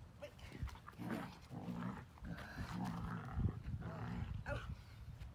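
Dog growling while it tugs on a toy, in uneven growls through the middle few seconds.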